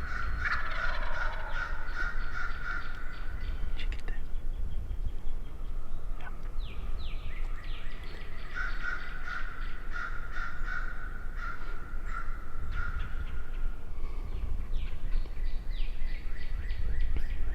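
Wild turkey calling: two long runs of quick, evenly repeated notes, about four a second, with a pause between them. A low steady rumble of wind on the microphone runs underneath.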